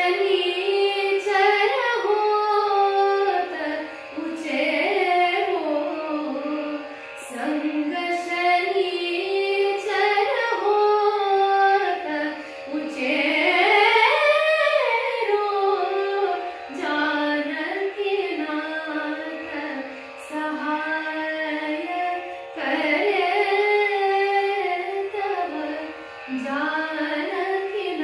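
Background music: a slow, Indian classical-style song with a voice singing a melody that bends and glides in pitch over a steady drone.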